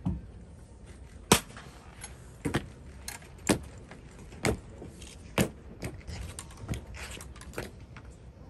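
Sharp clacks of a castle guard's boots striking the stone paving in slow ceremonial marching steps, about one a second.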